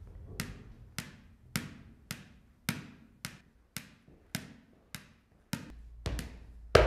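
Smackerz clacker toy: two balls on cords knocking together in a steady rhythm, about two sharp clacks a second, the last few louder.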